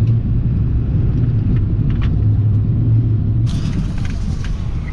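A vehicle driving, heard from inside: steady low engine and road rumble. A higher hiss joins about three and a half seconds in.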